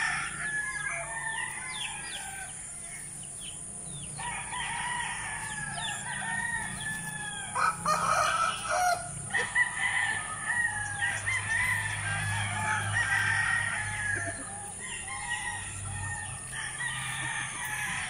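Backyard native chickens calling, roosters crowing and hens clucking, several voices overlapping. A few short sharp rustles or snaps stand out about eight and nine and a half seconds in.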